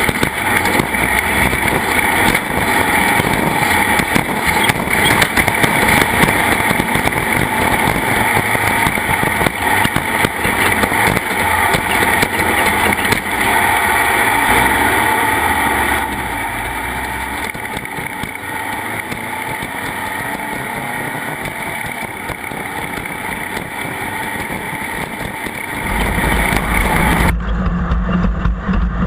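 Engine running under way, loud and continuous with rushing wind-like noise. It eases off about halfway through, and near the end cuts abruptly to a duller, low engine hum.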